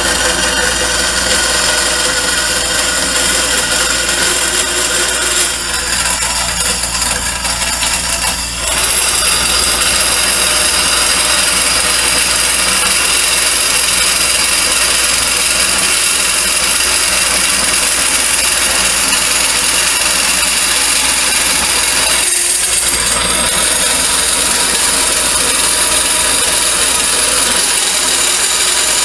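Converted 12-inch Craftsman vertical band saw running and sawing 3/16-inch steel plate. It gives a steady mechanical noise that grows louder and picks up a high hiss from about nine seconds in.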